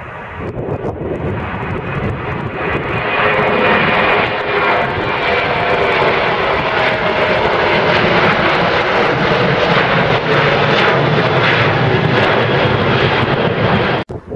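Jet airliner's engines at takeoff climb power, a roar that grows louder over the first few seconds as the plane climbs out and passes, with a faint tone sliding slowly down in pitch. It cuts off abruptly near the end.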